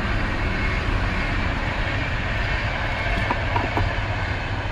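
Steady rushing background noise with a low rumble, and a few faint small clicks about three and a half seconds in as the wire brush's retaining screw is turned loose.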